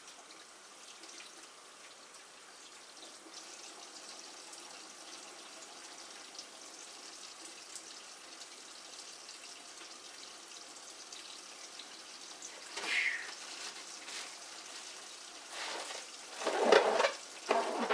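Water running steadily from a kitchen faucet into a sink. Near the end, a few loud rustling bursts from a plastic bag being handled.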